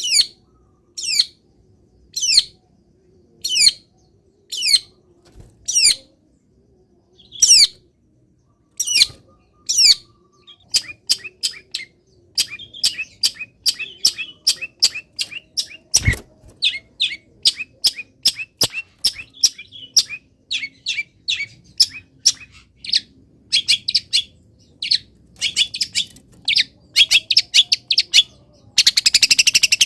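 Long-tailed shrike singing loudly. It starts with a string of single sharp, falling calls about one a second, and from about ten seconds in breaks into a quicker, denser run of chattering notes. A single sharp click comes about halfway through.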